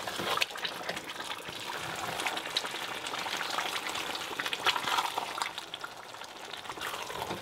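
Wooden spoon stirring a thick, oily stew of greens, meat and fish in red palm oil around a metal pot: wet squelching and scraping over the sizzle of the pot on the heat.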